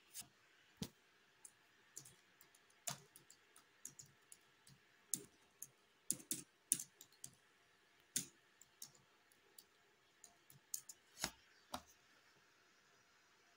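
Computer keyboard typing, with irregular key clicks and a few mouse clicks.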